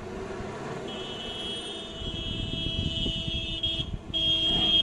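A vehicle's horn sounds a long, high-pitched steady tone that starts about a second in, breaks off briefly near the end and sounds again, over running engines that grow louder from about halfway.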